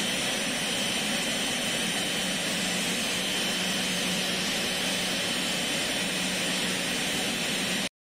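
Jet engines of a taxiing twin-engine cargo airliner running: a steady rushing noise with a constant high whine, cutting off abruptly near the end.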